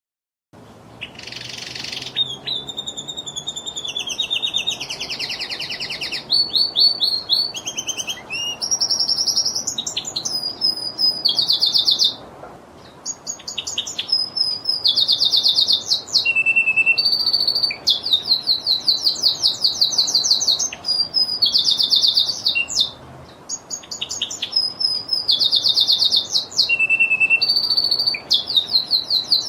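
Lizard canary singing: a long song of rapid trills and quickly repeated chirping notes, high-pitched, changing from phrase to phrase with brief pauses between them.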